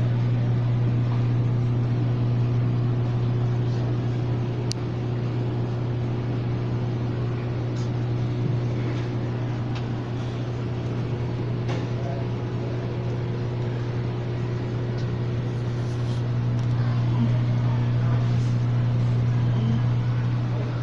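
Steady low hum of aquarium equipment, the water pumps and filtration of the store's banks of fish tanks, running without a break.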